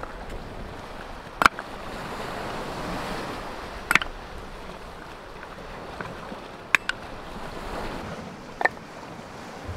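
Sharp wooden knocks of split firewood and birch logs being set down on rock, five in all (two close together past the middle), over the steady wash of sea surf.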